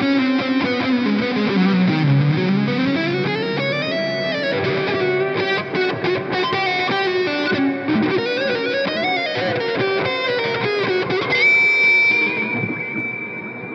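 Electric guitar fitted with a new cheap pickup, played through Amplitube 4 amp-simulation software: a run of notes with slides down and up in pitch, ending in a long held high note near the end.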